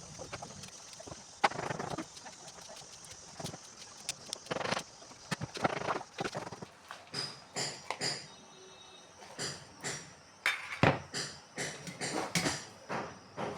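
Knife chopping vegetables on a cutting board: a series of knocks, sparse at first, then stronger and at about one to two a second in the second half.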